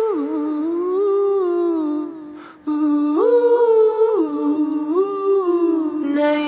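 A voice humming a slow, wordless melody without accompaniment, in two phrases with a brief break a little over two seconds in.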